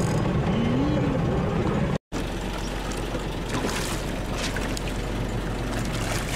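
A boat engine runs steadily under the scene, with a brief dropout about two seconds in. Splashing water joins it in the second half as a hooked dorado (mahi-mahi) thrashes at the surface beside the hull.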